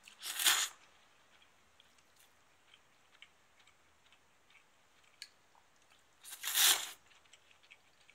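Two slurps of cold somen noodles, each about half a second long, one right at the start and one about six seconds in, with a few faint light clicks between them.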